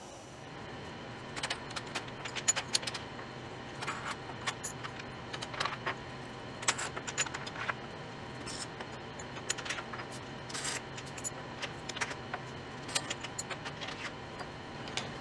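Irregular clicks, clacks and metallic clinks of wooden hold-down clamps, star knobs, steel T-bolts and washers being unfastened, lifted and set down on a CNC router's MDF spoilboard, over a steady low hum.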